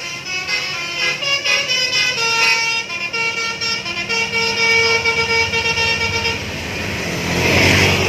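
Bus telolet horn, a multi-tone air horn, sounding a tune of changing notes. Near the end a vehicle rushes past close by.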